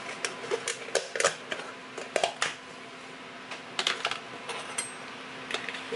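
Light, irregular clicks and taps of a spoon and a bowl of black olives being handled, in a few quick clusters.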